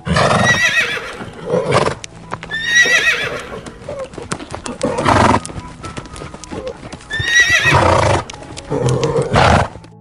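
Horse whinnying three times, each a high, wavering call, with harsh noisy blasts between the calls.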